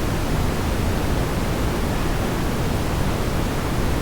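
Steady rushing roar of a waterfall, even and unbroken, heaviest in the low range.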